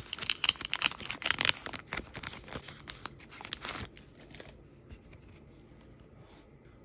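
Foil wrapper of a Pokémon Celebrations booster pack crinkling and tearing as it is ripped open by hand, dense and sharp for about four seconds. Then it fades to faint rustles as the cards are pulled out and handled.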